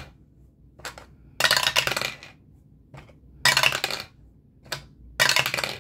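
A ten-sided die rolled repeatedly through a dice tower, clattering down inside and rattling into the tray. It lands three times, about two seconds apart, with faint clicks between rolls.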